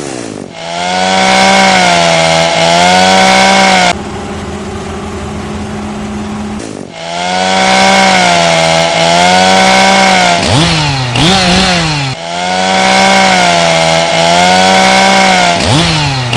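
Chainsaw running at high revs, its pitch sagging and recovering as it cuts, with a quieter steady stretch about four seconds in and quick rev-ups around ten to twelve seconds in.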